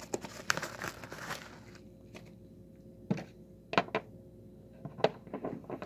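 Paper envelope rustling and crinkling as it is handled, for about the first two seconds. Then a few sharp clicks and knocks as a hard plastic card case is handled, with light crackling near the end.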